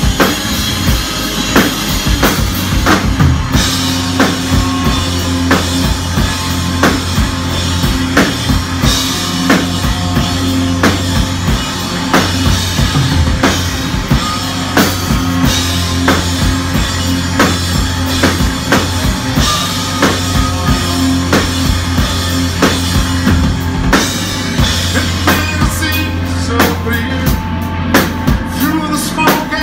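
Live rock band playing: a drum kit keeping a steady beat with kick and snare, under bass and electric guitar.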